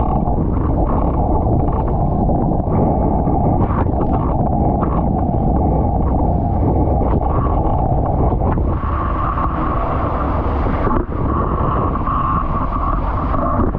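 Wind buffeting the boat-mounted camera's microphone over the rush of water and spray from an International 14 skiff's hull planing at speed in strong wind. About nine seconds in, a steady higher tone and more hiss join the noise.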